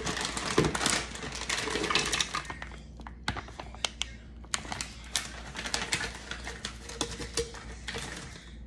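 Frozen fruit pieces poured into a plastic blender jar: a dense rattle of frozen berries hitting the plastic for the first three seconds or so, then scattered clicks as frozen mango chunks drop in.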